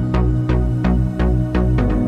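Background music with a steady electronic beat over sustained bass notes.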